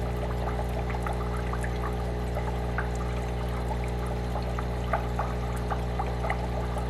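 Aquarium sponge filter bubbling: air streams up the lift tube, and bubbles gurgle and pop irregularly, a few times a second, over a steady low hum.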